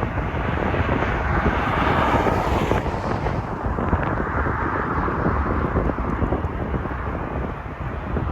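Jet airliner engines passing, loudest about two seconds in, with strong wind buffeting the microphone.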